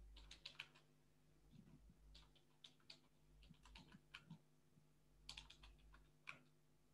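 Faint keystrokes on a computer keyboard, in four short bursts of quick clicks.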